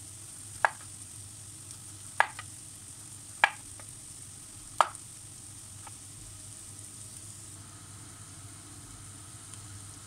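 Chef's knife slicing a zucchini into rounds, the blade knocking sharply on a bamboo cutting board with each cut: four loud knocks about a second and a half apart, a few fainter ones between them, then no more cuts after about six seconds.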